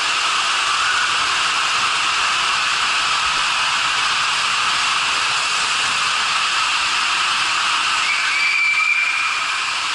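Water slide water rushing past the rider in an enclosed tube, a loud, steady hiss. Near the end a brief high steady tone sounds for about a second.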